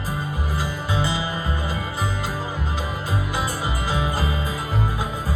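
Live country band playing an instrumental passage between sung lines: plucked acoustic guitar over a steady bass line on the beat.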